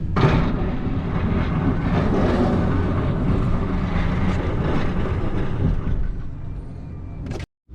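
Truck running with a steady low engine hum and a rushing drive noise, cutting off suddenly near the end.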